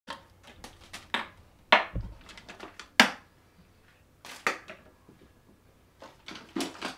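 Irregular sharp knocks and clatters in a small room, about a dozen spread unevenly, the loudest a little under two seconds in and again at three seconds.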